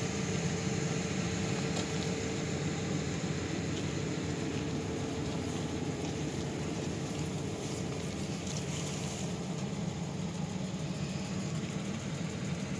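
Steady low mechanical hum, like a motor running, with one constant tone held throughout.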